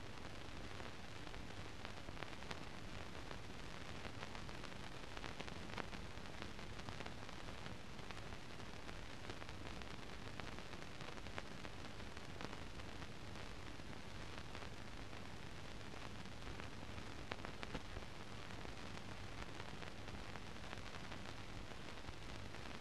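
Steady hiss with a faint low hum and scattered faint clicks and crackles: the noise floor of a silent film transfer, with no recorded sound.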